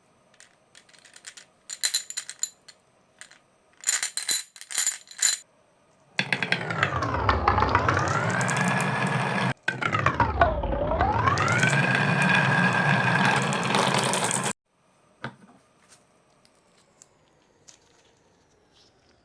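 Marbles clicking and clinking along a marble run, several small hits with a bright metallic ring. Then a loud pitched tone starts abruptly and runs for about eight seconds, swooping down in pitch and back up twice, and stops suddenly.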